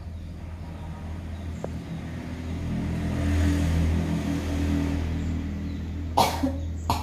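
A motor vehicle's engine hum that swells to its loudest around the middle and then eases off, as a vehicle passes by. Two short, sharp knocks near the end.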